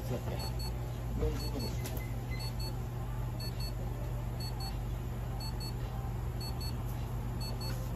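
An electronic medical device beeps a short, high double pip about once a second, over a steady low hum of equipment.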